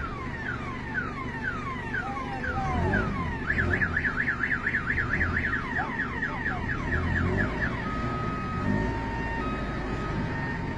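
A vehicle's electronic siren cycling through its tones. It opens with falling sweeps about twice a second, changes to a fast warble a few seconds in, then quicker falling sweeps, and ends on steady beeps at two pitches. A low engine rumble runs underneath.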